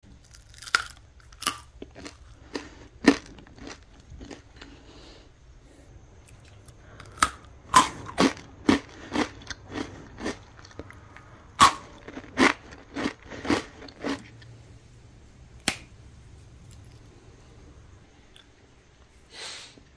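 Crisp baked sesame-coated potato rusk sticks being bitten and chewed, in irregular sharp crunches that come thickest from about seven to fourteen seconds in, then thin out.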